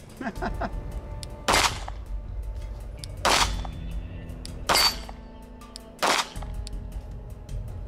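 Glock 43X 9mm compact pistol fired four times in slow succession, roughly one and a half seconds between aimed shots.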